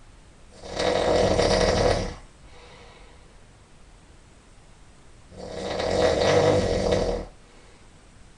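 A person snoring really loud: two long, rough snores, the first about half a second in and the second about five seconds later, with quiet breathing between.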